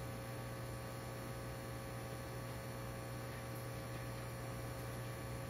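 Steady low electrical hum with a faint hiss underneath, with no music or voices.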